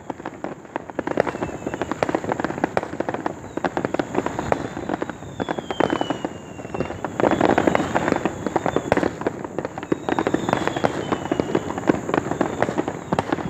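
Many fireworks going off at once: a dense, continuous crackle of bursts, with a few high whistles gliding downward in pitch.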